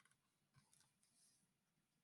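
Near silence: room tone, with a few faint brief clicks.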